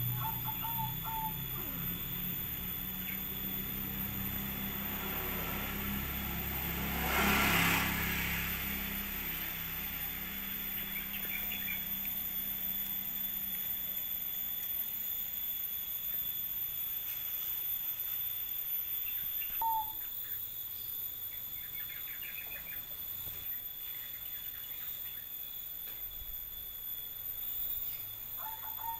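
Outdoor ambience: a steady high insect drone with a few short, high chirps, and a brief loud rush of noise about seven seconds in.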